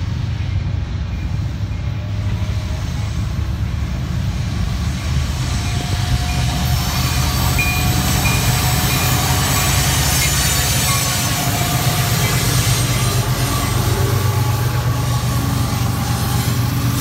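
Freight train of diesel-electric locomotives (a CSX SD70AC leading, an ES44AH second) approaching and passing close by, with a steady low engine rumble. About six seconds in it grows louder as the rumble of wheels on rail builds while the locomotives and then the stacked container cars go past.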